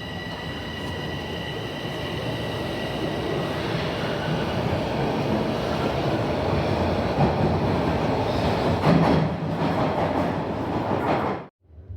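Light rail train running, heard from inside the car: a steady high whine fades in the first few seconds while the rumble and rattle of the wheels on the track grow louder, then the sound cuts off suddenly near the end.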